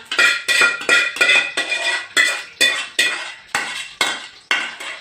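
Metal spoon knocking and scraping against a metal pot, ringing clinks about two or three times a second, as tomato sauce is spooned out onto pasta.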